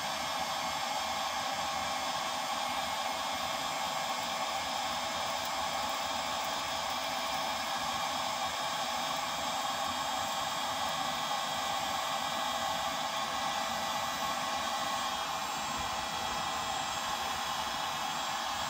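Handheld electric heat gun running, its fan blowing a steady rush of air with a faint motor whine.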